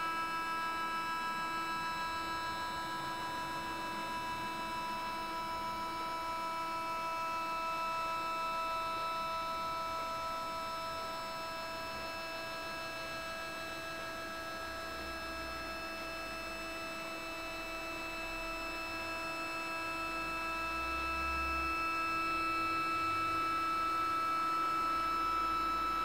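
SynScan EQ5 Pro stepper motors driving an EXOS-2 equatorial mount through a slew, a steady whine made of several held tones. It dips a little in the middle and rises again near the end.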